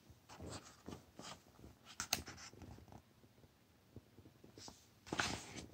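Faint rustling and soft taps of a picture book's paper pages being handled, with a sharp click about two seconds in and a louder rustle near the end.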